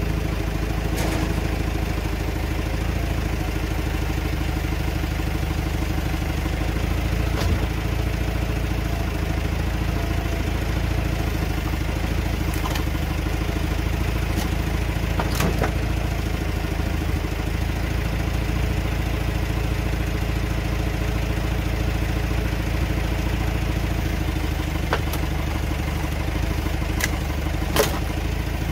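Forklift engine running steadily while it hoists a car engine out of its bay, with a few sharp clanks and knocks from the engine and its fittings shifting as it comes up, the sharpest near the end.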